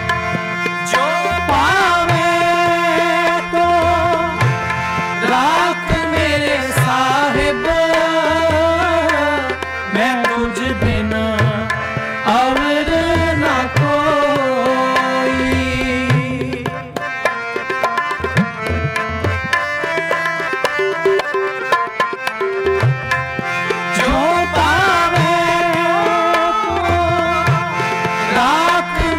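Sikh kirtan: a man sings a devotional hymn in long, gliding melodic phrases, accompanied by harmonium holding steady notes and tabla playing a rhythmic pattern.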